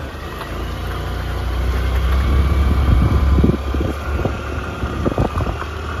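Engine of a vehicle moving slowly along a road, a steady low rumble that swells in the middle, with a few short louder sounds after about three seconds.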